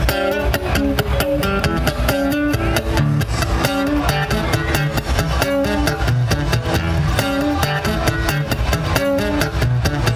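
Live music: a nylon-string acoustic-electric guitar picked in a run of notes over a steady beat.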